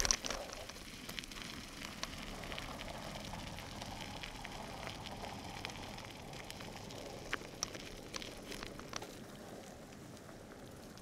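Mountain bike rolling over a gravel track: knobby tyres crunching and crackling on loose stones, with a few sharper clicks and rattles from the bike. It goes a little quieter near the end.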